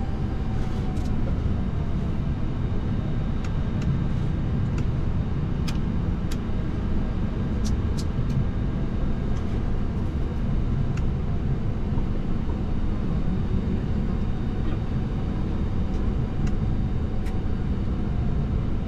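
Steady low rumble on a Boeing 737-800 flight deck as the airliner taxis on idling engines, with a faint steady whine and a few light clicks.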